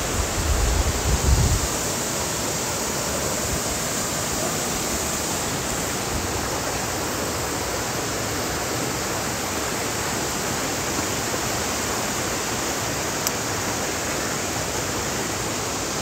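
Steady rushing of a waterfall cascading over boulders. A low rumble comes in over it for the first second and a half.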